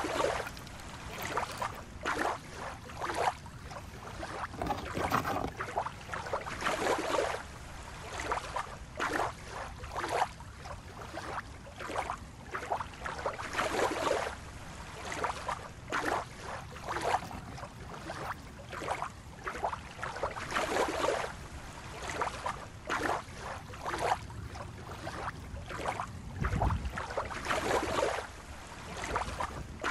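Small waves lapping and splashing against a rocky shore in soft, irregular surges, over a steady low rumble of wind.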